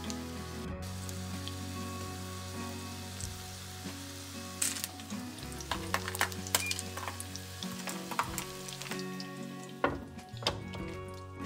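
Food frying in oil in a pan, sizzling steadily, with a run of sharp clicks and pops starting about four seconds in.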